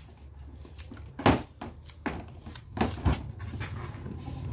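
A handful of knocks and clatters from white plastic kids' table parts being handled and set down, the loudest about a second in.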